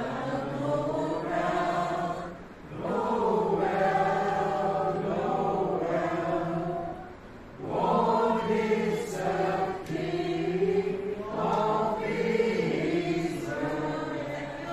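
A small group of voices singing a song together in phrases, with short breaks for breath about two and a half and seven seconds in.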